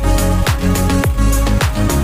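Background electronic dance music: a steady kick drum beating about twice a second over a held bass line and sustained chords.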